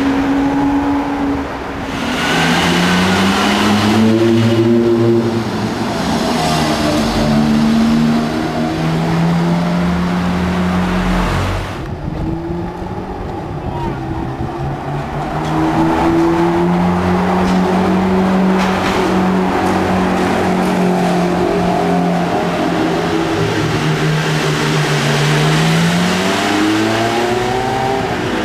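Ferrari supercar engines under hard acceleration: first a Ferrari 599 GTB's V12, then a Ferrari F430's V8. The engine note climbs and levels off again and again as each car accelerates, with a short dip about twelve seconds in.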